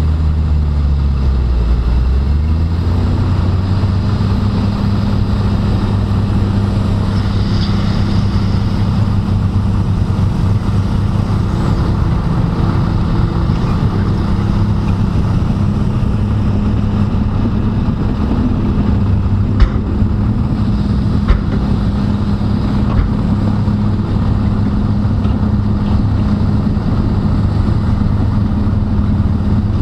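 Heavy diesel earthmoving machinery running steadily. The engine note shifts in pitch over the first couple of seconds, then holds, with a couple of sharp clicks about two thirds of the way through.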